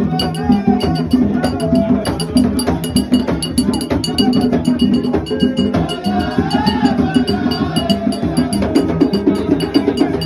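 Live hand drums and a clacking wooden percussion beat playing a fast, steady rhythm, with voices singing over it.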